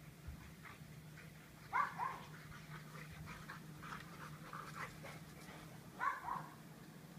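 Boxer puppies playing, giving high-pitched yelps twice in quick pairs, about two seconds in and again near the end, with a run of shorter, softer whines and yips between.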